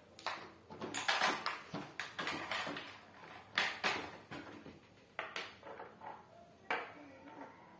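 Irregular knocks and clatters of small objects being picked up and set down on a table, about eight or nine sharp hits spread unevenly.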